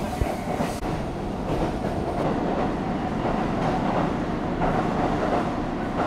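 Passenger train running, a steady rumble with rail noise.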